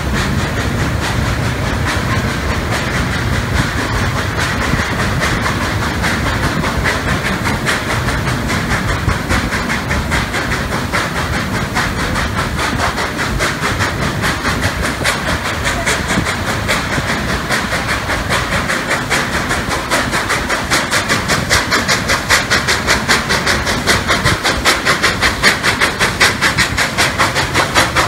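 Durango & Silverton's K-36 2-8-2 steam locomotive No. 481 pulling its narrow-gauge train: a steady rhythm of beats with wheel clatter under a constant hiss. The beats grow louder and sharper over the last several seconds.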